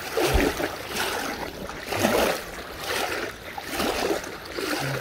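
Legs wading through floodwater, sloshing and splashing with each stride, about once a second.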